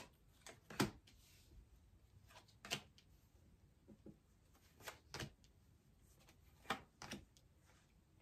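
Tarot cards being dealt one at a time onto a tabletop, about six short sharp taps and slaps of card on table with quiet between.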